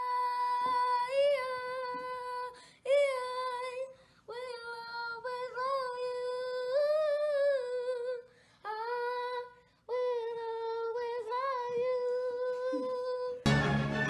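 A high voice holds long, drawn-out notes, mostly steady with short swoops, broken by brief pauses. Music cuts in suddenly near the end.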